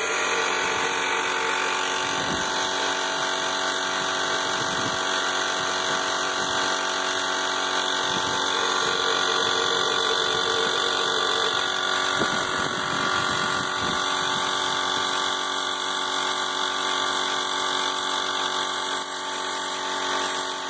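A motor running steadily, a constant hum and whine with several fixed tones, with a few soft knocks over it.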